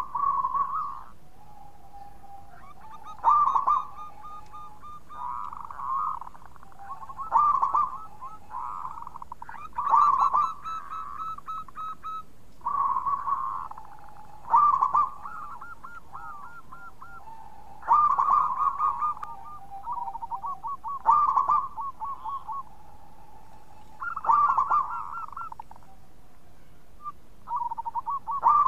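Zebra dove (perkutut) singing in a cage: repeated phrases of quick cooing notes, each opening with a louder accented note and trailing off in a softer run, about one phrase every three seconds.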